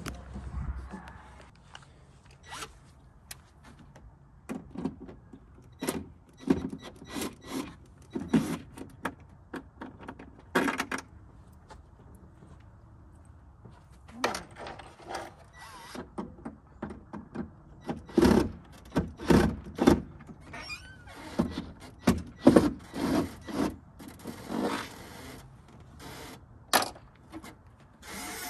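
Cordless drill running in repeated short bursts, working the bolts that hold a rear wing to a car's trunk lid.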